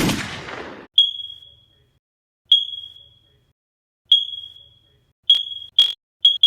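Electronic beeps on one high tone that come faster and faster: three spaced about a second and a half apart, each ringing out briefly, then four in quick succession near the end. At the start, the fading tail of a noisy blast.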